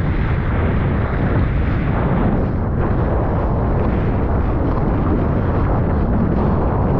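Steady, loud wind rumble buffeting an action camera's microphone just above choppy sea, with rushing water beneath it.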